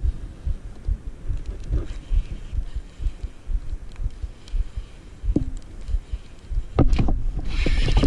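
Baitcasting reel being cranked and the rod twitched close to the microphone, heard as irregular low thumps and rubbing with a few light clicks. About seven seconds in a louder rush of noise starts as a smallmouth bass takes the jerkbait.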